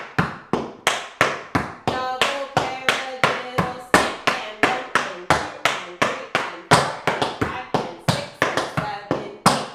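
Tap shoes' metal taps striking a wooden tap floor in a quick, even rhythm of about three to four sharp clicks a second. It is a beginner tap combination that opens with paradiddles, with a few louder accented strikes, the last one near the end.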